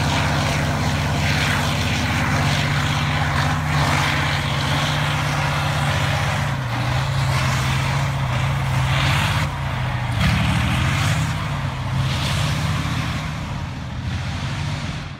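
T-72 tank's V-12 diesel engine running hard as the tank crests a steep hill and drives away. Its pitch shifts a couple of times, and it fades a little near the end.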